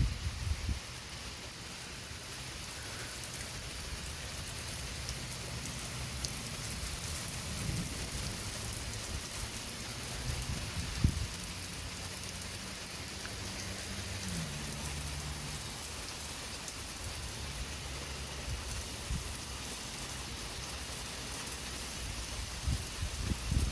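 Heavy rain pouring steadily during a thunderstorm, with a few brief low rumbles.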